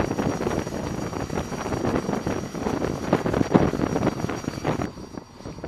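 T-45 Goshawk trainer jet's Rolls-Royce Adour turbofan running on deck: a rushing jet noise with a faint high whine, dipping briefly near the end.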